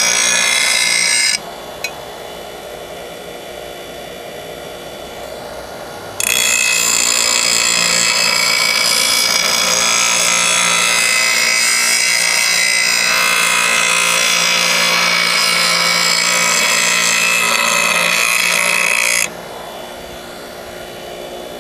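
A 6-inch bench grinder's wheel grinding the steel edge of a lawn mower blade to sharpen it, in two loud spells: a short one at the start and a long one from about six seconds in until near the end. In between and afterwards the grinder runs freely with a steady hum.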